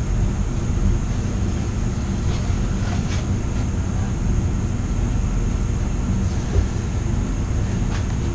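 A steady low mechanical drone with a thin high whine above it, broken by a few faint ticks and one soft thump about two-thirds of the way through.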